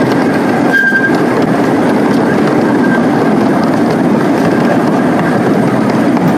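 Steady running noise of a park train, heard from on board as it rolls along. A short high-pitched squeal comes through about a second in.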